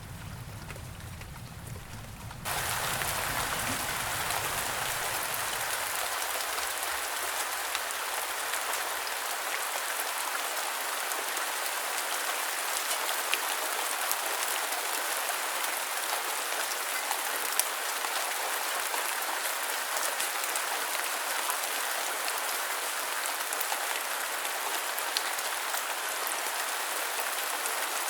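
Rain falling steadily as a dense, even hiss with scattered sharp drop ticks. It starts abruptly about two and a half seconds in, while a low rumble fades out over the first few seconds.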